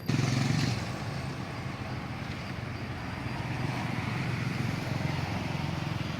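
A steady low rumble of a motor vehicle's engine running, a little louder in the first second.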